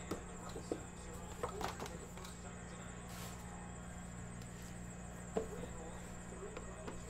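Cardboard hobby boxes being handled and set down on a table: a few short taps and knocks, the loudest about five seconds in, over a steady low electrical hum.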